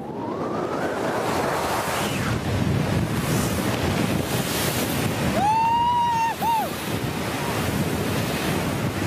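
Wind rushing over a skydiver's helmet camera in freefall, a steady loud roar of air. A little past halfway a brief high-pitched cry sounds, held about a second, then once more shortly.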